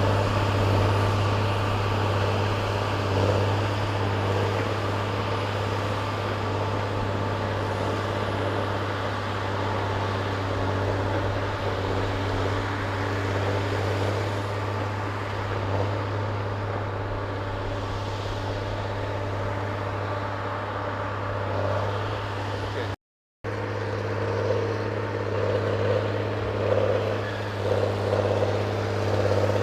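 Heavy machinery's diesel engine running steadily with a deep hum and some variation in load. The sound drops out for a moment about three-quarters of the way through.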